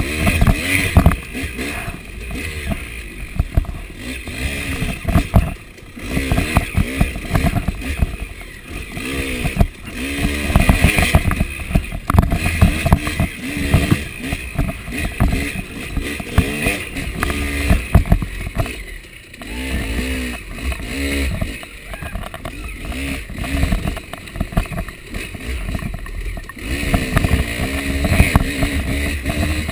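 KTM 300 two-stroke dirt bike engine revving up and down continuously as it is ridden hard over rough woodland trail, with frequent knocks and clatter from the bike; the engine briefly backs off about two-thirds of the way through.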